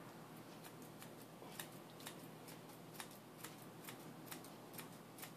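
Grooming shears snipping the dog's coat under the chin and head: faint, crisp snips about two a second.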